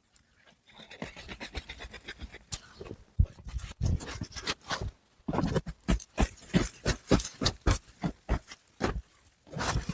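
Footsteps crunching through snow, an uneven series of crunches starting about a second in.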